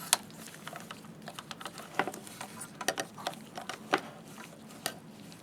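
Scattered light clicks and taps as a cable and the metal chinrest bracket are handled, with the cable being pulled through under the bracket's bar.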